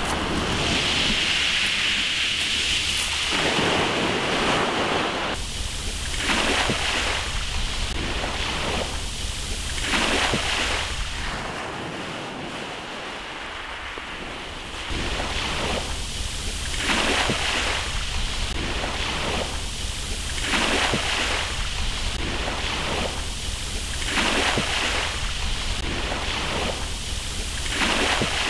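Wind buffeting the microphone with a steady low rumble, over the wash of small waves on a pebble shore. The rushing noise swells and fades about once a second and eases for a few seconds around the middle.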